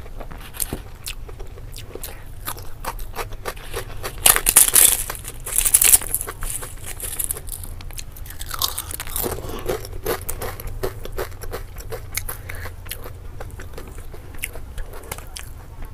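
Close-miked eating: crisp fried crackers crunching loudly for a couple of seconds about four seconds in, then steady chewing and wet mouth clicks of food eaten by hand.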